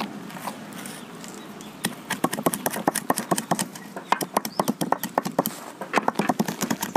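Stone roller of an ammi grinding stone rolled back and forth over whole black peppercorns and fennel seeds on a stone slab, the seeds cracking and the stone knocking in quick rattling runs, sparse at first and busier from about two seconds in.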